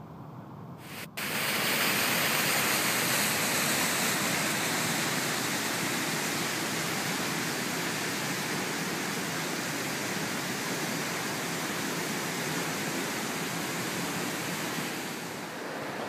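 Waterfall on a creek: a steady rush of white water that starts abruptly about a second in and eases slightly near the end.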